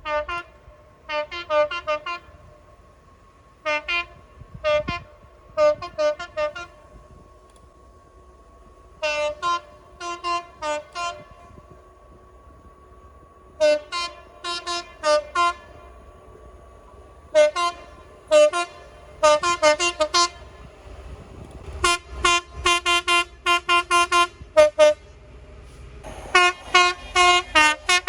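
Train horns sounded in rapid strings of short toots, clusters of several quick blasts every second or two, over the low rumble of trains. A faint steady whine runs under the first half.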